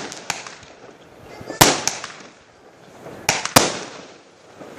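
Consumer fireworks going off: a handful of sharp bangs, the loudest about one and a half and three and a half seconds in, each trailing off in a fading crackling hiss.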